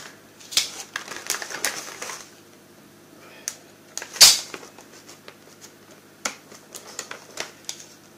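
Toy figure's packaging being handled: a quick run of clicks and crinkles in the first two seconds, a single loud click about four seconds in, then scattered lighter clicks.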